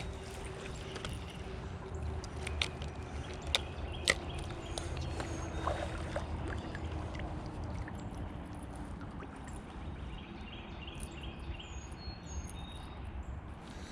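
Water moving around a kayak on a river, with a few sharp knocks about three to four seconds in and faint high chirps now and then.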